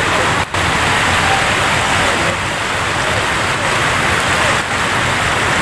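Water pouring over a weir spillway: a loud, steady rush that breaks off for an instant about half a second in.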